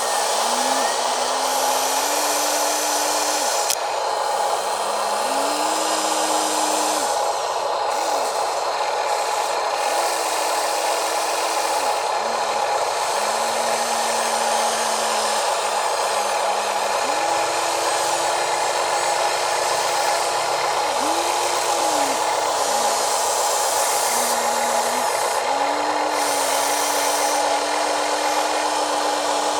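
Electric motors and gearboxes of radio-controlled model construction machines whirring without a break, with a lower motor hum that rises, falls and changes pitch every few seconds as the controls are worked.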